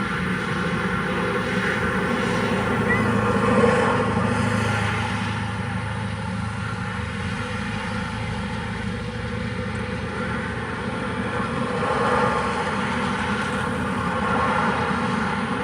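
RC cars running during a race: a steady motor whine and rolling noise that swells a little around four seconds in and again near twelve seconds.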